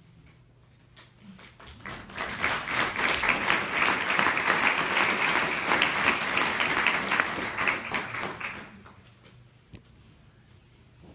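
Audience applauding, a dense patter of many clapping hands that starts about two seconds in and dies away about nine seconds in.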